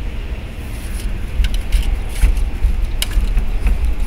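Heavy rainstorm outside: a steady low rumble of wind and rain, with faint hiss and scattered short ticks.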